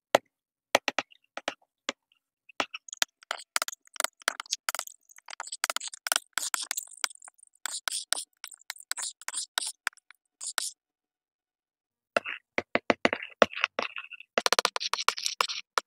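Thick wet paint being squished and smeared together: a run of sticky clicks, squelches and scrapes. They stop for about a second, then come back denser near the end.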